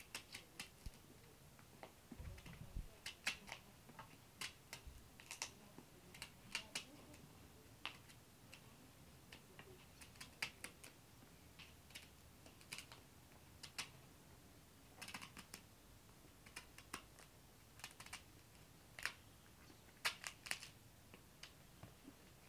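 Kitchen knife cutting and peeling the firm rind off pumpkin slices: irregular crisp clicks, one or two a second and sometimes in quick clusters, with a couple of dull low thumps about two to three seconds in.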